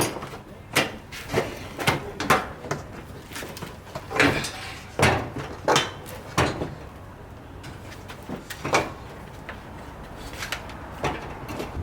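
Irregular clicks and knocks of bolts and quick-release pin hardware being handled and refitted by hand, with a quieter pause in the middle.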